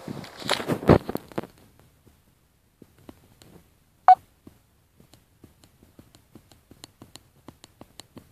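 Rustling and a sharp knock of a handheld phone being handled during the first second and a half, then a single short beep about four seconds in, followed by faint irregular clicks.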